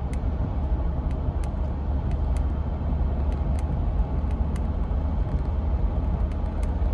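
Steady low rumble of engine and road noise inside the cabin of a Mahindra Bolero Neo, its 1.5-litre three-cylinder diesel pulling lightly as cruise control raises the speed to about 70 km/h. Faint, irregular ticks sound over it.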